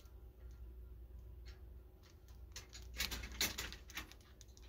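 Small clear plastic bags of diamond-painting drills handled in the hand: faint crinkling of the plastic and the tiny beads pattering as they shift, with a short cluster of crinkles about three seconds in.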